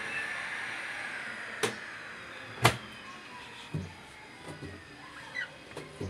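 Two sharp clicks about a second apart, the second the loudest, then several soft knocks as the door of a Samsung front-loading washing machine is opened and a hand handles the drum. A steady hum fades away over the first two seconds.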